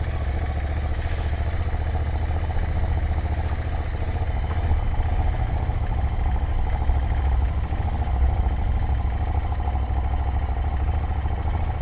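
Royal Enfield 650 parallel-twin motorcycle engine running steadily at an even pitch, with no revving.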